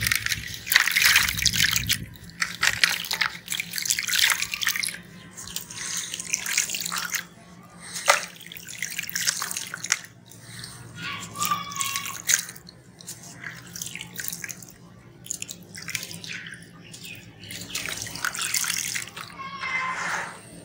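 Soft sand-cement block crumbling in the hands, its crumbs and grit splashing and dripping into a basin of water in irregular bursts, with a faint steady low hum underneath.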